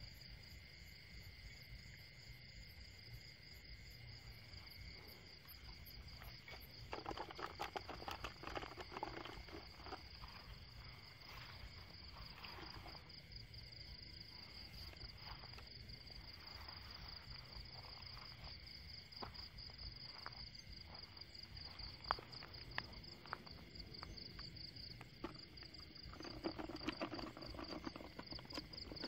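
Night insect chorus: crickets trilling steadily in a high, fast pulse, with a second, lower insect drone beneath. Rustling and brushing noises come twice, about seven seconds in and near the end, with a few sharp clicks in between.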